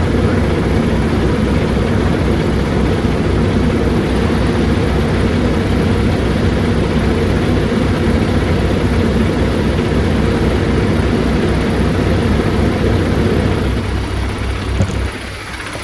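A motor running steadily with a low, even pulsing, which drops away about fourteen seconds in, leaving a quieter low hum.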